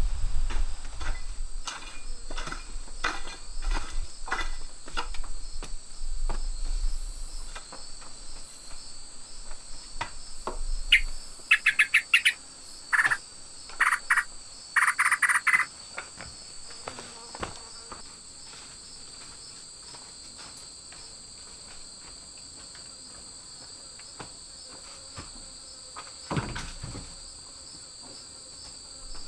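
Steady, high-pitched drone of jungle insects, pitched at two levels. Over the first ten seconds it is broken by a run of sharp knocks and clicks, and from about eleven to sixteen seconds by a few short shrill chirps. A single knock comes near the end.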